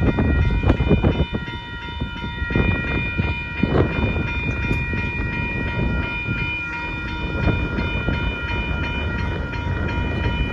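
Amtrak Texas Eagle passenger train passing close by, its locomotive horn held in one long steady chord over the rumble and clatter of the cars on the rails.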